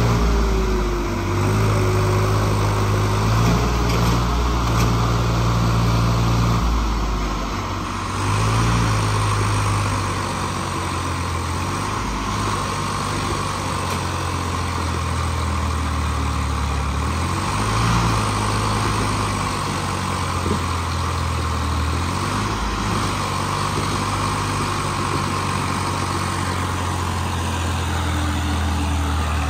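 Diesel tractor engines running hard, their pitch stepping up and down several times as the throttle changes, pulling against each other in a tug-of-war under heavy load.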